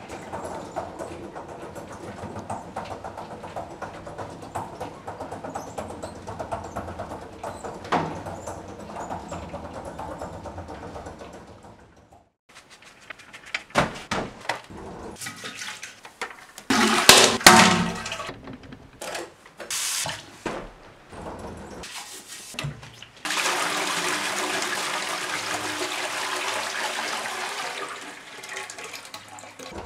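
A housekeeping cart rolling and rattling, with a single knock about eight seconds in; then bedding rustled and a pillow shaken into its case; then a toilet flushing, a rush of water about five seconds long that fades out.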